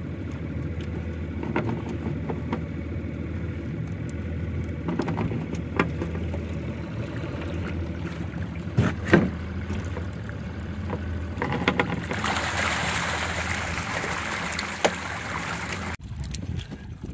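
Small boat's outboard motor idling with a steady low hum while a hoop net is hauled aboard. A few sharp knocks come from the net's hoops striking the boat. For a few seconds near the end there is a loud rush of water splashing as it drains from the lifted net.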